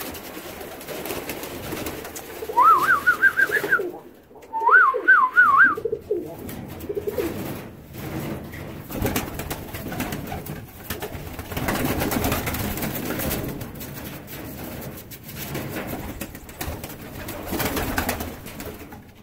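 Pakistani high flyer pigeons cooing on their nest shelves, repeatedly. Twice, early in the stretch, a loud warbling trill that wobbles quickly up and down in pitch sounds over the cooing.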